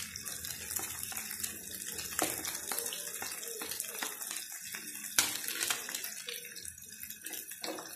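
Hot oil sizzling and crackling in a frying pan around chicken pieces as chopped onion is scraped in with a spatula. One sharp knock about five seconds in.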